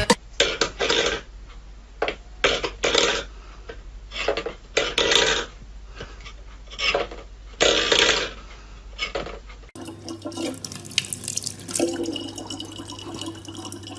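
An irregular run of short, harsh noisy sounds. About ten seconds in, it gives way to a kitchen tap running in a steady stream into a plastic water bottle.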